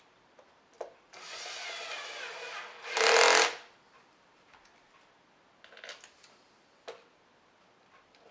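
A small power tool runs for about a second and a half, then gives a short, much louder burst about three seconds in. Scattered clicks and knocks of parts being handled come before and after.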